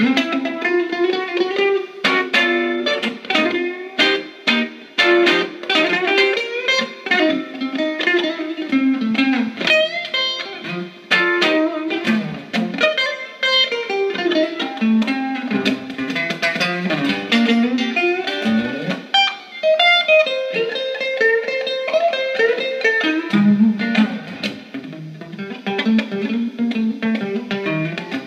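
Solo hollow-body electric guitar played through a small tweed combo amp: a blues shuffle of picked notes and riffs, unaccompanied.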